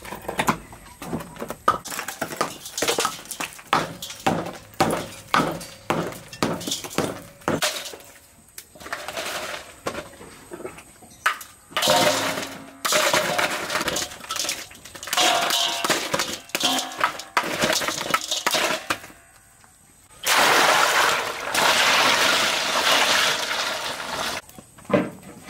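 A wooden mallet strikes a large block of ice about twice a second, cracking it apart. Then comes scraping and crunching as ice is chipped and broken into a steel bowl, ending in a loud rush of crushed ice for several seconds.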